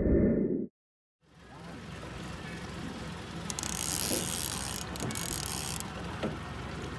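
A short, loud low sound over the opening title that cuts off sharply, then after a moment of silence a steady rushing noise of wind on the microphone on an open lake fades in, brighter and hissier for a couple of seconds in the middle.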